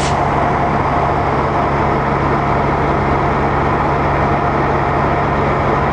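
Cessna 170A's six-cylinder Continental engine and propeller running steadily, heard from inside the cabin as a constant low drone.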